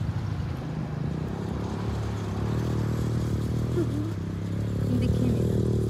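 Mahindra Thar's engine running under load as the SUV drives up a sand dune, its note steady and rising slightly near the end.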